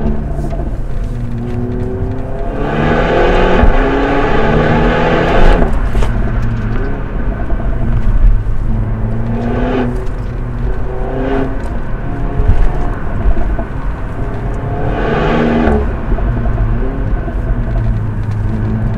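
Renault Megane RS's turbocharged four-cylinder engine being driven hard. The revs climb and then fall away several times, with louder stretches at high revs.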